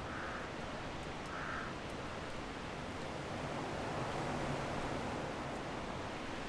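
Strong wind blowing steadily with a rushing hiss, swelling briefly about four seconds in.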